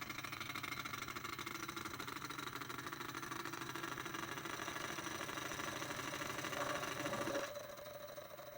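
Small benchtop machine tool's motor running steadily with a fast, even rattle. About seven and a half seconds in it drops to a quieter, steady hum.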